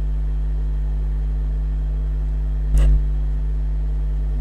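Steady low hum throughout, with a single short knock nearly three seconds in: a wooden spoon striking the steel cooking pot as the liquid is stirred.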